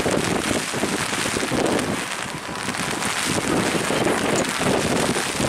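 Rain falling steadily, mixed with wind noise on the microphone.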